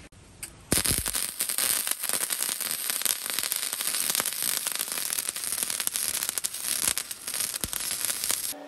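Flux-core wire-feed welder arc crackling steadily as a bead is laid on a steel bicycle frame tube, starting just under a second in.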